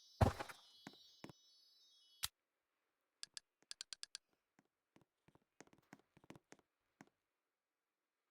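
A thump right at the start, then a scattering of light, sharp clicks at uneven spacing, a dozen or more, mostly in the middle of the stretch.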